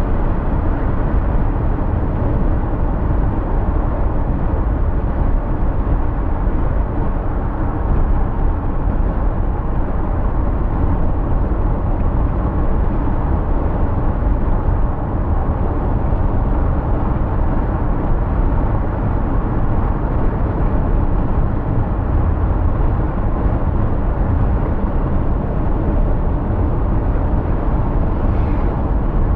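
Car driving on a city road: steady rumble of road and tyre noise, strongest in the deep lows.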